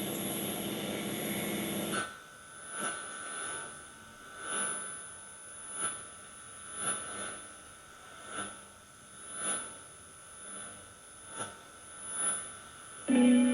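Shortwave receiver hiss that drops sharply about two seconds in as the station's carrier comes up, leaving a steady whistle with soft swells roughly once a second. The keyboard music of the station's opening starts just before the end.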